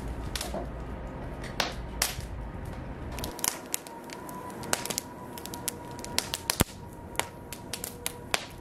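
Wood fire of sawn planks and kindling burning in a brick barbecue pit, crackling with sharp, irregular pops. A low rumble stops about three seconds in, and the pops come thickest after that.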